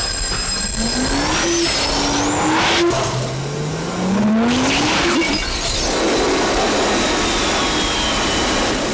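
Car engine accelerating in repeated rising sweeps of pitch, as if climbing through the gears, with tyre squeal over it.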